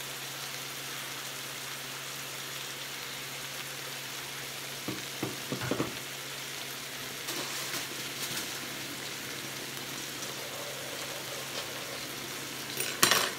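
Pork chops sizzling steadily on a hot flat grill, freshly doused with marinade. A few light knocks come about five seconds in, and a louder clatter just before the end.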